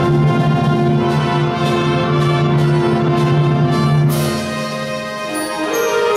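Middle-school concert band of brass and woodwinds playing held chords with evenly spaced short accents. A bright accented entry comes about four seconds in, followed by a brief softer passage before a new chord near the end.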